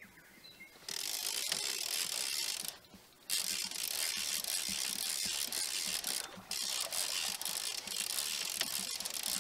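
Fishing reel being wound in to check for a fish on the line: a rapid, steady clicking from the reel's gears. It starts about a second in and stops briefly around three seconds in.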